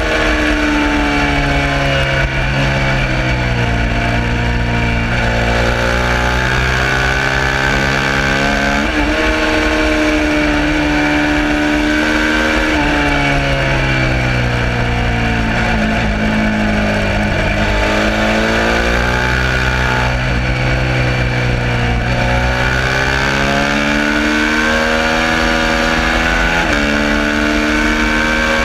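Suzuki SV650's V-twin engine at full race pace, the pitch climbing under throttle, dropping suddenly at gear changes and sweeping down under braking and downshifts several times over.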